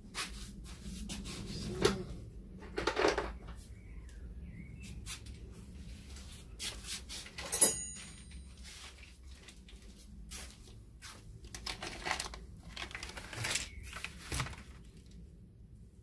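Metal hand tools being handled and rummaged through: scattered clicks, knocks and rattles, with one sharp metallic clink that rings briefly about seven and a half seconds in.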